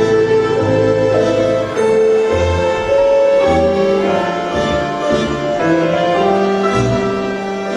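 Instrumental music on a keyboard, a slow melody of held notes over a bass line that changes about once a second.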